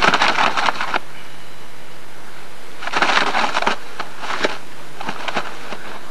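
Short bursts of crackling, scraping rustle as a carp is handled on an inflatable, about a second at the start, again about three seconds in and twice more near the end, over a steady tape hiss.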